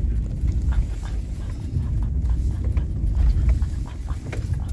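Car driving over snow-covered lake ice, heard from inside the cabin: a steady low rumble of tyres and engine with scattered light clicks and rattles.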